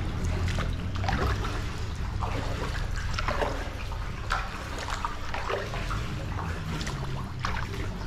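Kayak paddles dipping into canal water, with splashes and drips every second or so over a steady low rumble.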